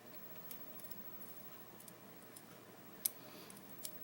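A few faint, sharp clicks of small metal lock parts being handled as a pin-tumbler lock cylinder is taken apart, its springs and pins coming out; the sharpest click comes about three seconds in.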